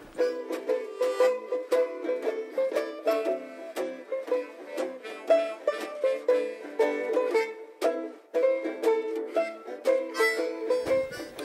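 Background music of quickly picked notes on a plucked string instrument.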